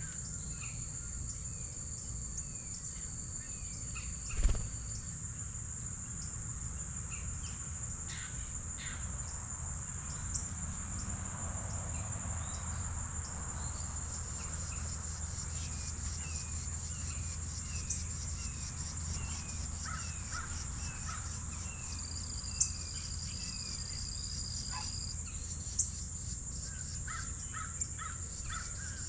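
Crickets trilling steadily and high-pitched, with scattered short falling bird chirps and two held whistled notes. A few sharp knocks cut in, the loudest about four seconds in.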